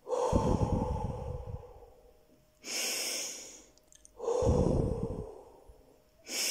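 A woman doing a breathing exercise: a long blowing breath out through the mouth, a sniffing breath in through the nose, then a second long breath out, with the next breath in starting at the end. The out-breaths puff onto the microphone.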